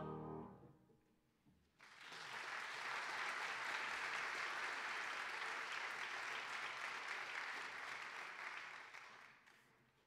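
A choir's final chord fades out, and after a brief pause the congregation applauds for about seven seconds, dying away near the end.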